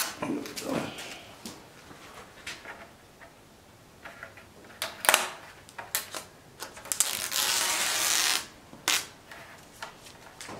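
Red protective liner being peeled off the double-sided stick tape on a Corvette aero piece: scattered small clicks and crinkles, then one longer, louder tearing rip about seven seconds in.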